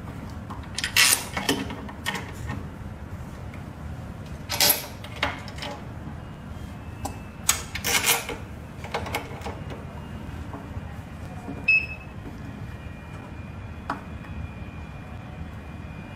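Irregular metal clacks and clanks as the swing eye-bolt clamps on the lid of a vacuum laminating machine are flipped into place and fastened by hand, over a steady low hum. Later a sharper click is followed by a faint steady high whine.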